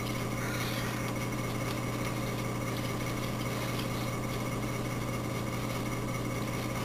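A steady low hum with a constant hiss over it, unchanging and with no distinct events: background noise of the room or the recording equipment.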